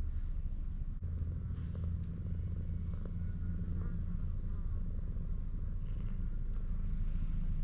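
Black-and-white cat purring close to the microphone, a steady low rumble that is strongest in the first half.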